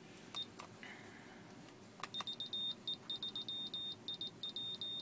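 Beeper of an Atlanticon 2002 kit-built PIC Morse code sender name badge sending code: one short high beep, a click at about two seconds, then a run of short and long high-pitched beeps in Morse dots and dashes.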